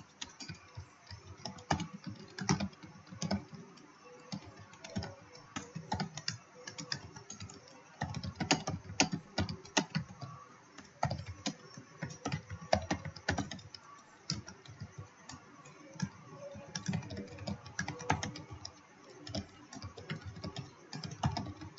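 Typing on a computer keyboard: a run of irregular key clicks with short pauses between bursts.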